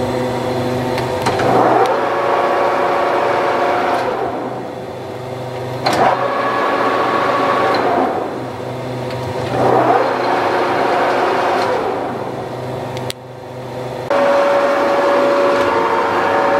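TOS SN 40 centre lathe running under power, its headstock gears giving a whine that swells and fades three times as the spindle speed changes. A click comes about thirteen seconds in, then a steadier, higher-pitched whine.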